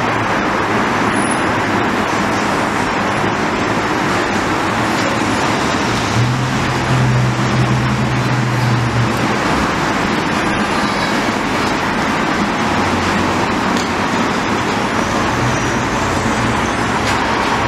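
Steady street traffic noise from passing road vehicles. A deeper engine drone rises for about three seconds in the middle.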